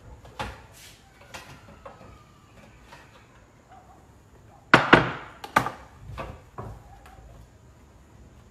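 Kitchen clatter of cut zucchini slices and utensils being handled on a wooden board and laid on a tray: a few light clicks, then a burst of sharp knocks about five seconds in and a couple more just after.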